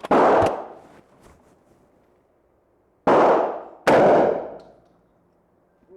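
Three gunshots: one right at the start, then two more about three seconds later, under a second apart. Each is a sharp crack followed by a trailing echo.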